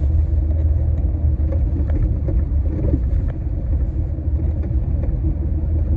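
Steady low rumble of a car driving on an icy, snowy road, heard from inside the cabin.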